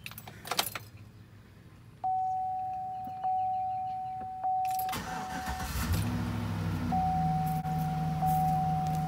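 2007 Chevrolet Silverado starting up from inside the cab. Keys jangle in the ignition, then the dash warning chime dings about once a second. About five seconds in, the engine cranks, catches, flares briefly and settles into a steady idle while the chime carries on.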